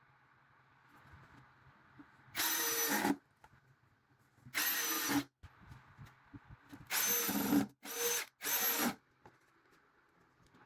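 Power drill run in five short bursts of under a second each, with a high whine in each burst.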